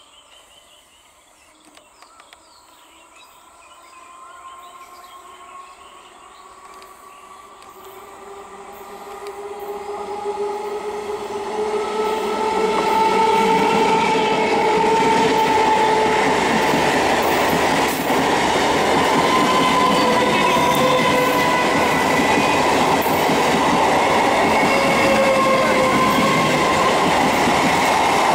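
Electric multiple unit (EMU) local train accelerating as it approaches, its traction motors giving a slowly rising electric whine that grows steadily louder over the first dozen seconds. The coaches then pass close by, loud and steady, with running noise of wheels on rails.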